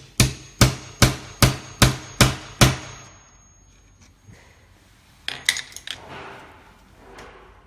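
A hammer tapping a screw to punch a new hole in a cabinet door for a lock plate: about seven sharp blows, roughly two and a half a second, that stop about three seconds in. A brief run of lighter clicks follows a couple of seconds later.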